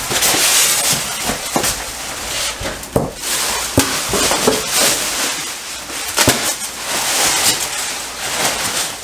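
Plastic sheeting and black trash bags rustling and crinkling, with styrofoam packing blocks knocking and squeaking as they are pulled out and stuffed into the bags.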